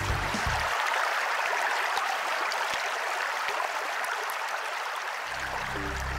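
Steady rush of flowing water, as from a mountain stream or small waterfall. Background music drops out within the first second and comes back shortly before the end.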